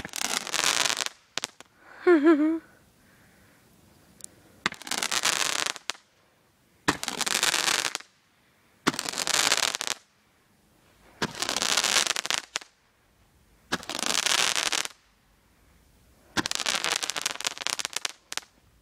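Roman candle firing seven shots about two seconds apart, each a sharp-starting whoosh of hissing sparks lasting about a second; the last runs longer. A short voice-like call comes about two seconds in.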